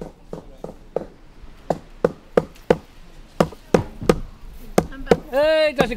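Wood being chopped or struck with quick, regular blows, about three a second, loudest in the middle. A voice calls out near the end.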